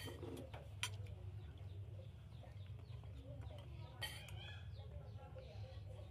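Metal spoons clicking against ceramic plates and bowls during a meal, a couple of sharp clinks standing out, over a steady low hum.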